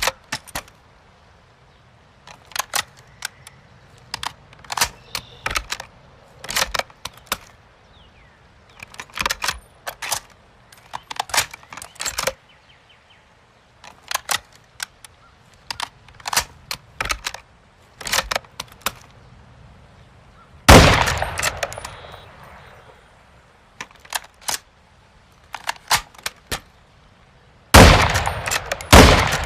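M24 bolt-action sniper rifle: clusters of sharp metallic clicks from the rifle's action, repeated about every two seconds. Then two loud rifle shots with long echoing tails, the first about two-thirds of the way in and the second near the end.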